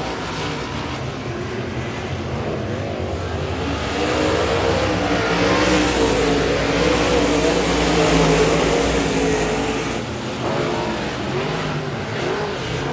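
A field of UMP dirt modified race cars racing at speed, several V8 engine notes overlapping and wavering in pitch. They grow louder in the middle as the pack passes close, then ease off.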